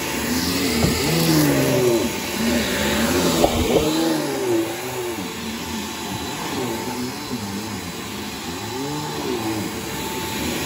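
Bissell PowerGroom bagless upright vacuum cleaner running on carpet while pushed back and forth, a steady rushing noise with a whine that rises and falls in pitch over and over.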